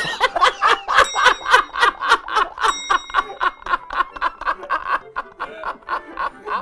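Two men laughing hard together in fast, rhythmic bursts of 'ha-ha-ha', about four or five a second.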